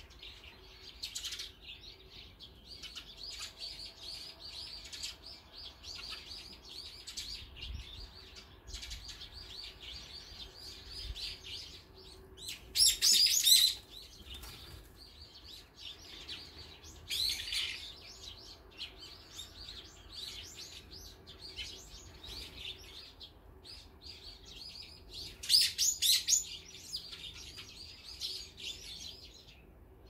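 Small songbirds chirping continually, with two loud bursts of sharp calls, one a little before the middle and one near the end, and a shorter louder burst in between.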